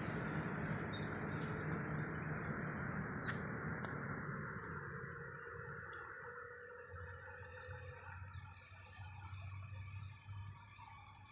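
A steady rushing noise fades away over the first few seconds, leaving a low hum and a few short, high bird chirps near the end.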